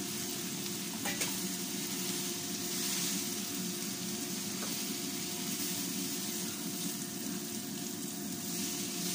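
Diced onion, garlic and fresh tomato sizzling steadily in olive oil in a nonstick frying pan while a silicone spatula stirs them: a refogado base being sautéed until the tomato softens.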